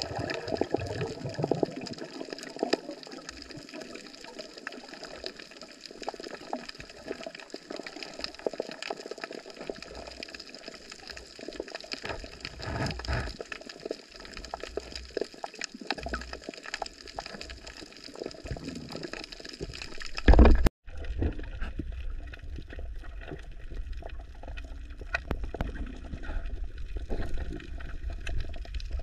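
Water sloshing and splashing close to the microphone, with scattered small knocks. About two-thirds through there is one loud knock and a brief dropout, after which a steady low rumble runs under the water sound.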